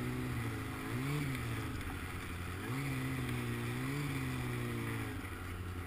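Snowmobile engine running while riding, its revs rising briefly about a second in, easing off, then picking up again near the middle and holding fairly steady.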